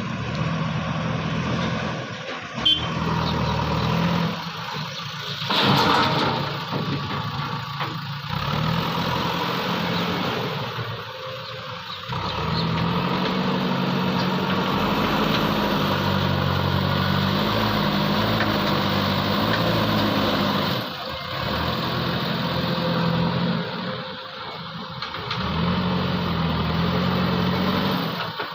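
JCB backhoe loader's diesel engine running, its pitch rising and falling with repeated lulls as the machine works at loading a truck, with a loud knock about six seconds in.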